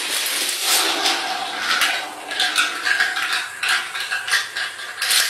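Wooden dominoes and blocks toppling and clattering: a dense rattle of many small knocks that thins to scattered clicks, with a sharp cluster near the end.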